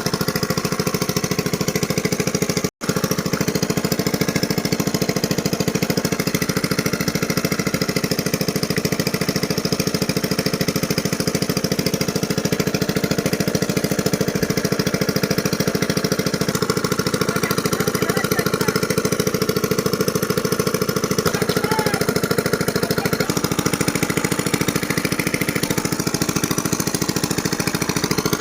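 Small engine running steadily with a rapid, even beat. The sound drops out for a split second about three seconds in.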